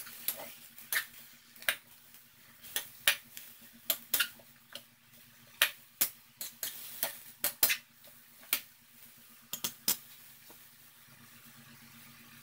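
Metal spatula clinking and scraping against a thin metal frying pan while sautéed cabbage is stirred, in irregular sharp clinks. The clinks stop near the end.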